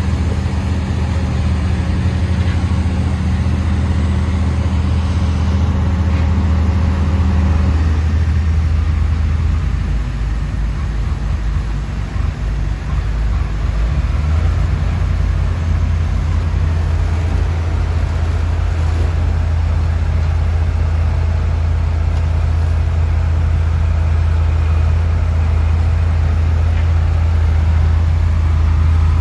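Heavy diesel engines of an excavator and dump truck running with a steady low hum. The engine note changes about eight seconds in, eases off for a few seconds, then picks up and runs steady again.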